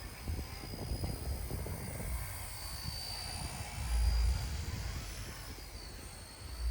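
Small electric RC scale helicopter (RC Era C032 UH-1 Huey) in flight: a steady high motor-and-rotor whine that wavers in pitch, over wind rumbling on the microphone that swells in a gust about four seconds in.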